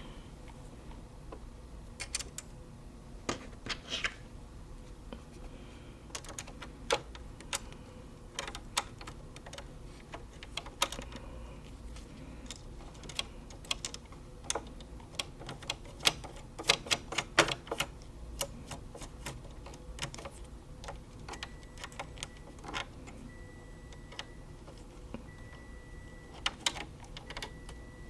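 Irregular clicks and light metallic taps as small screws and the metal needle plate are handled and fitted back onto a Brother SE400 embroidery machine, with a quick cluster of clicks about halfway through.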